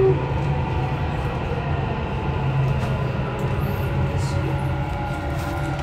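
Dubai Metro electric train running, heard from inside the car: a steady rumble with a faint whine above it.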